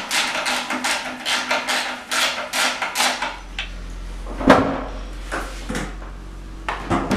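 Ratchet spanner clicking in quick, even strokes, about four a second, as the last bellhousing bolts are undone between a Jaguar E-type's 4.2 engine and its gearbox. About four and a half seconds in there is a single loud metal clunk, followed by a few lighter knocks.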